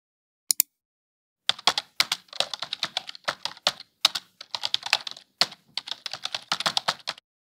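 A single mouse click, then fast typing on a computer keyboard from about a second and a half in: runs of keystrokes with short pauses between them.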